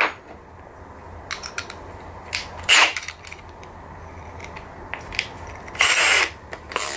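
Handling sounds of a drill bit being changed in a cordless drill's chuck: a few short clicks and scrapes, the loudest about three seconds in and a longer scrape near six seconds.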